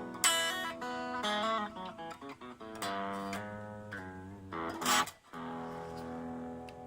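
Guitar played through a Raizin ODIS effects unit: picked notes and chords, each struck sharply and left to ring, with the strongest attacks just after the start and about five seconds in.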